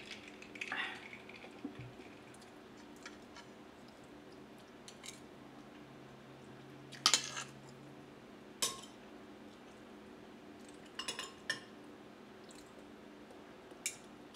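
Metal spoon and fork clinking and scraping against a ceramic plate while food is scooped up: a handful of separate clinks, the loudest about halfway through.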